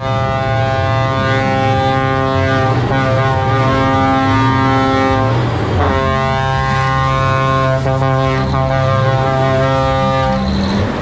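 Truck air horns sounding in long held blasts of several tones at once, over a steady low engine note. The blasts break about three seconds in, again near six seconds, and stop about ten and a half seconds in.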